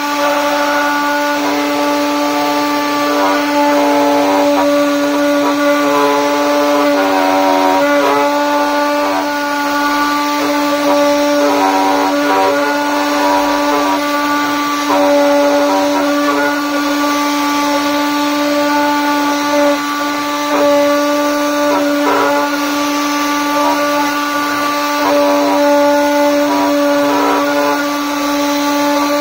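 CNC router spindle running with a steady high whine while its bit engraves grooves into a wooden board, with uneven bursts of cutting noise as the bit moves along the lines.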